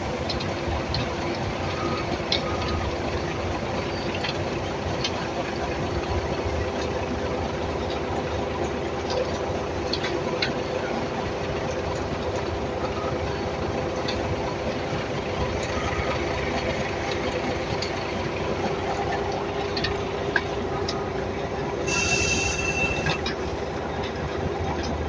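Heavy earth-moving machinery working at a crusher: a steady mechanical drone with metallic squealing and scattered clicks and knocks. Near the end comes a brief high-pitched tone lasting about a second.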